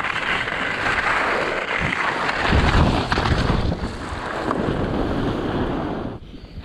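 Wind rushing over an action camera's microphone and skis scraping through snow on a descent. Heavier low bumps come about two and a half to three and a half seconds in as the skier goes down into the snow, and the noise drops near the end.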